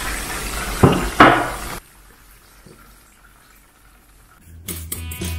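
Chicken frying in a skillet, a steady sizzle, with two sharp clanks of metal tongs against the pan about a second in. The sizzle cuts off abruptly before two seconds, leaving quiet, and music starts near the end.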